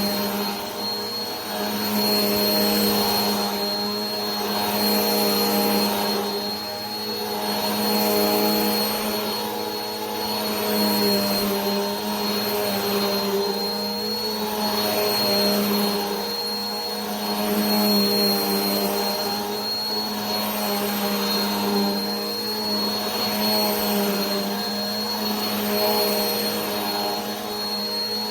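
Vacuum cleaner running continuously: a steady motor hum with a thin high whine, and an airflow hiss that swells and fades about every two seconds.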